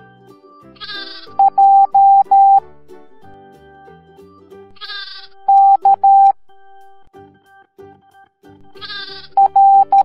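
A sheep bleats three times, each bleat followed by a steady Morse code beep tone spelling a letter: J (dot-dash-dash-dash), then K (dash-dot-dash), then L (dot-dash-dot-dot) near the end. Cheerful children's music plays underneath.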